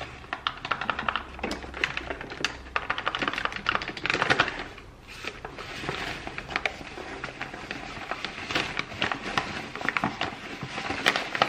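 Paper bag of spelt flour crinkling and rustling in the hands as the flour is poured into a stainless-steel stand-mixer bowl: a dense, irregular run of small crackles and taps.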